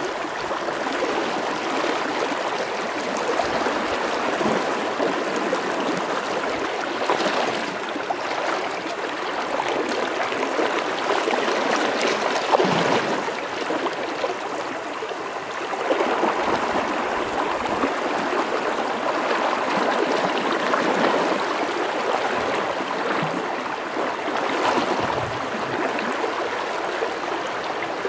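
River water flowing steadily, a continuous even noise of moving water that swells and eases slightly in level.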